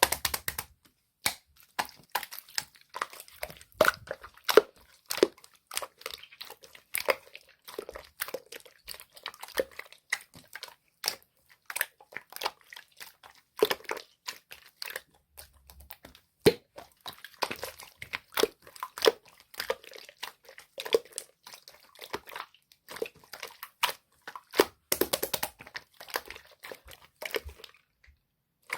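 Clear slime being squished and pressed by hand, giving a continuous run of irregular sticky clicks and pops.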